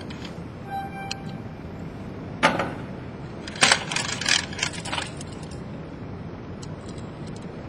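Metal hardware on a tripod rescue rig clinking as it is handled: one sharp clink about two and a half seconds in, then a cluster of clinks and rattles over the next second and a half, over steady background noise.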